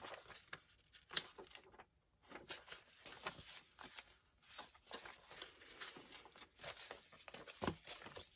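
Old, aged book pages and papers being leafed through and shifted by hand: dry paper rustling and flicking in short, irregular crackles.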